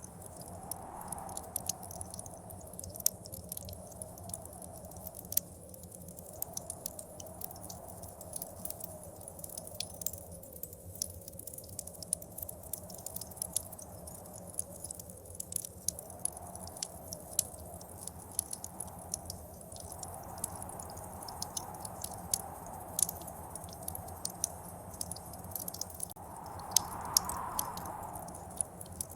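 Fireplace crackling with frequent sharp snaps and pops, over blizzard wind that swells and fades in gusts every few seconds, loudest near the end.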